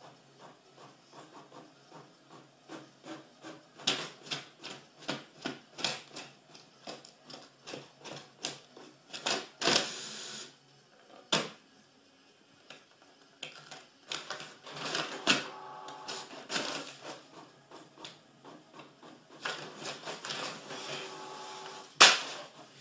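A printer running and printing: a steady series of mechanical clacks, about two a second. There are louder bursts of rattle around ten seconds in and again a few seconds later, stretches of motor whine, and one sharp clack near the end.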